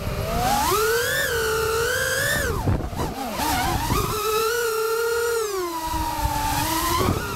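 FPV racing quadcopter's motors and propellers whining, the pitch rising and falling with the throttle; a little under three seconds in it drops and wavers, then climbs again about a second later. Wind rush sits underneath.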